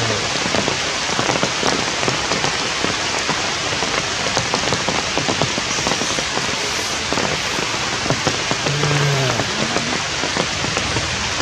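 Steady rain falling on forest leaves, a dense even hiss of many small drop impacts.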